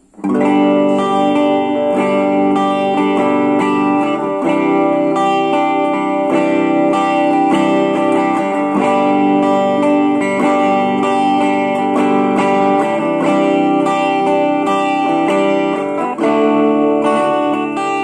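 Electric guitar played through a Blackstar Fly 3 mini amplifier, a 3-watt amp with a single 3-inch speaker, heard through a phone's microphone. A run of picked notes and chords starts abruptly and continues without a break.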